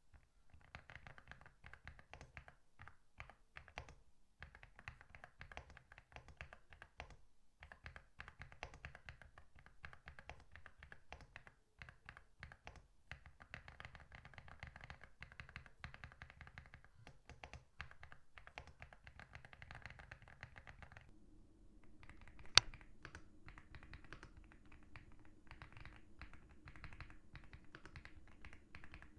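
Typing on a mechanical keyboard fitted with swapped keycap sets, a fast run of keystroke clicks and clacks. About 21 s in the recording changes, with a steady low hum under the typing, and one sharp, much louder click follows shortly after.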